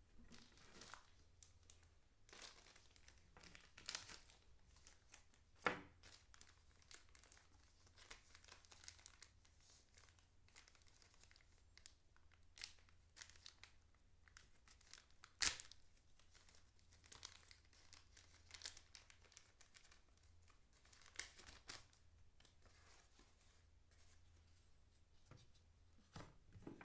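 Packaging being handled: faint, irregular crinkling and tearing of wrapping, with many small clicks and two sharper knocks about six and fifteen seconds in.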